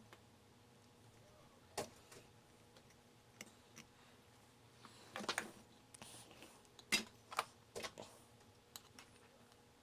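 Light clicks and taps of small metal hand tools on a workbench while push buttons on a circuit board are being replaced, about eight separate ticks with a short cluster about five seconds in. A faint steady hum sits underneath.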